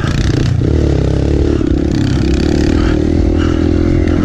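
Kawasaki KLX pit bike's small four-stroke single-cylinder engine running under throttle while riding on snow, heard close from the bike itself. The engine note rises and falls with the throttle in the first second or so, then holds fairly steady.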